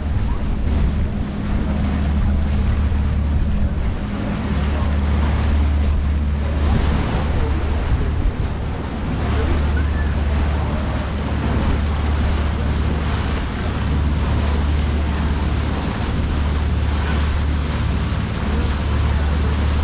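Wind buffeting the microphone aboard the Arrowhead Queen tour boat under way, over the rush of lake water along the hull and a low rumble that dips briefly every few seconds.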